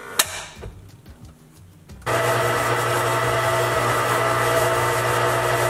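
Cuisinart stand mixer running with its paddle attachment, creaming butter and sugar. Its motor starts abruptly about two seconds in and then runs as a loud, steady hum and whine. A sharp click comes just before, near the start.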